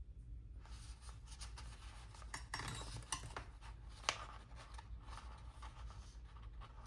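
Light rustling, scratching and small taps of paper and a sticker sheet being handled as small dot stickers are peeled off and pressed onto a planner page, with a sharp tick about four seconds in.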